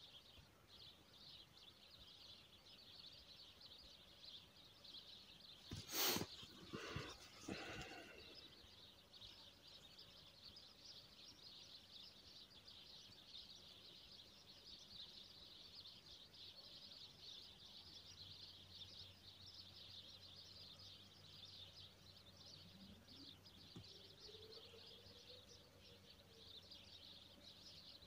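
Near silence: faint, steady, high-pitched outdoor chirping, with one sharp knock about six seconds in followed by a brief sound.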